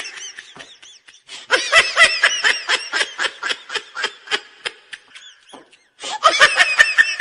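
High-pitched giggling laughter, a quick run of laugh pulses about four a second, breaking off for a moment about five seconds in and then starting again.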